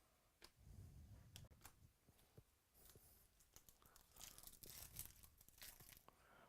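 Faint rustling and crinkling of trading card packs and cards being handled, with scattered small clicks and light tearing of pack wrappers.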